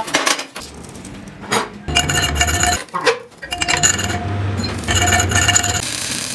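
Metalworking on a welded truck suspension trunnion shaft: scraping and clinking of metal, with short ringing metallic tones that come and go several times.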